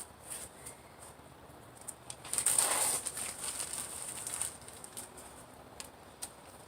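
Paper burning: scattered faint crackles, with a louder rush of noise about two and a half seconds in that fades over the next two seconds.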